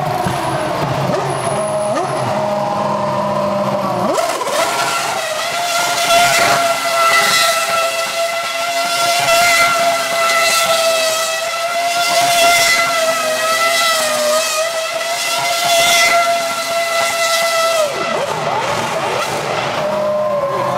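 Red Bull Formula One car's engine revving hard during a smoky burnout, rear tyres spinning on the tarmac. The note wavers at first, then is held at a steady high pitch for about fourteen seconds before falling away near the end.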